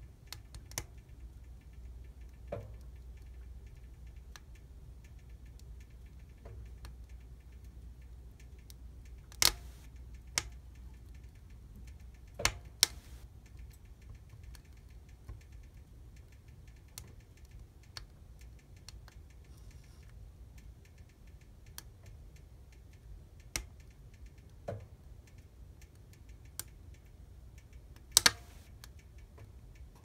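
Wood fire burning in a fireplace, crackling with scattered sharp snaps and pops over a low, steady rumble of flame. A few pops stand out louder than the rest, among them a close pair near the end.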